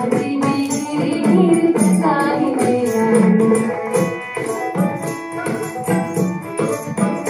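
Dance music playing over a loudspeaker: a singing voice over a steady beat of drums and jingling percussion.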